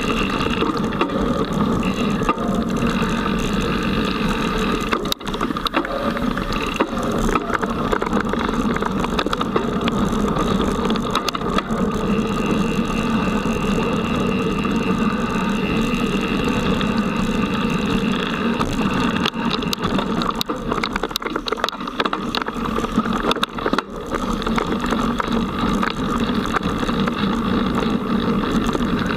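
Mountain bike ridden fast along a dirt forest trail, heard from a camera carried by the rider: steady tyre rumble and the clatter and rattle of the bike over the rough ground, dipping briefly twice.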